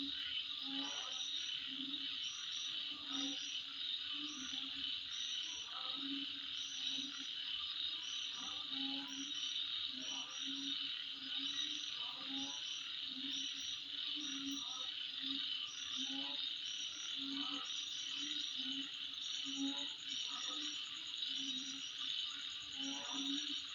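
Night insect chorus: a steady high trill, with short chirps repeating above it. Low calls pulse underneath about twice a second.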